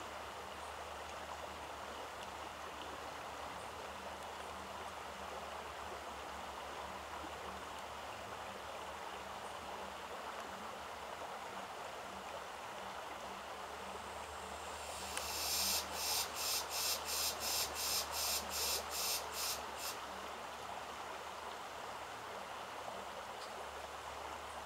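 Steady rushing of running water. About two thirds of the way in comes a run of about a dozen sharp, high chirps, roughly three a second, lasting some five seconds.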